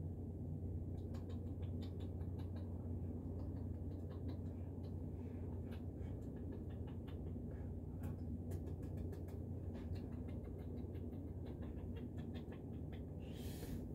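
Kitten playing on a floor mat, its paws and claws pattering and scratching in many small light clicks as it swats at a hand, over a steady low hum. A brief rustling noise comes near the end.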